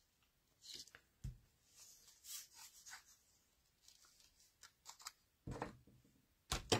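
Strips of patterned card paper being slid and laid out by hand on a craft mat: faint, scattered paper rustles and light taps, with two sharper taps near the end.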